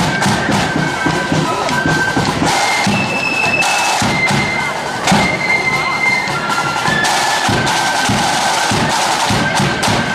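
Marching flute band playing: shrill flutes carry a tune in held high notes over a steady beat of side drums and bass drum.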